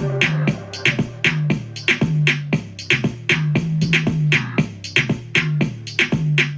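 Upbeat song playing through a Goodmans Bluetooth outdoor rock speaker during an audio test: a steady beat of about four sharp hits a second over a repeating bass line, with no singing in this stretch.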